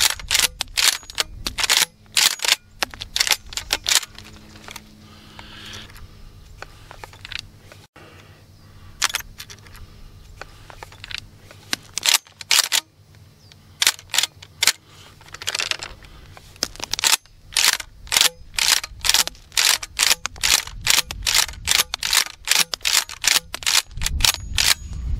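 Maverick 88 pump-action 12-gauge shotgun being racked again and again to cycle mini-shell slugs out of the magazine unfired: quick runs of sharp clacks, with two short lulls, about a fifth and half way through. Without the adapter the short slugs do not cycle fully reliably.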